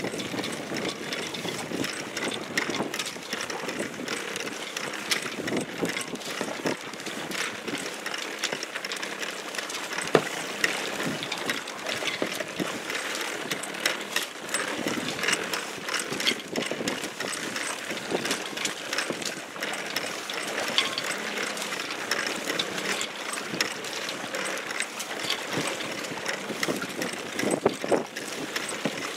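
A small open boat moving through choppy water: water splashing and slapping at the hull, with wind on the microphone and irregular clicks and rattles from the boat's fittings.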